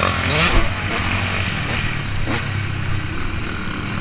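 Motocross dirt bike's engine heard close from the bike itself, revving and climbing in pitch through gear changes under hard acceleration, with wind rushing over the microphone.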